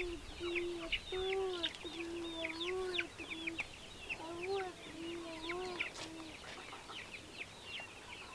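Giriraja chickens clucking: a run of low, drawn-out calls that stops about six seconds in, over steady quick high chirping.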